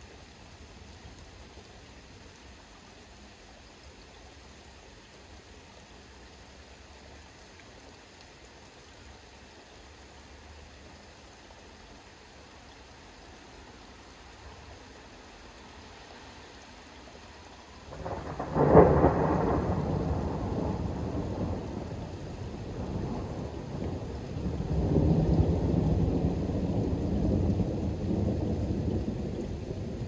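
Thunder: a faint steady hiss, then a sudden loud peal of thunder about two-thirds of the way in. It rolls on as a deep rumble that swells again near the end.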